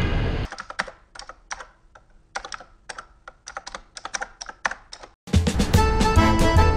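Typing sound effect: a run of sharp, irregular key clicks, several a second, for about four and a half seconds. Background music then starts abruptly.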